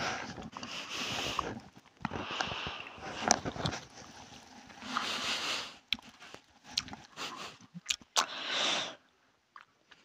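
A person gulping a drink straight from a plastic bottle, with swallows and small mouth and bottle clicks, then heavy breathing: several hissy breaths of about a second each. It goes quiet about a second before the end.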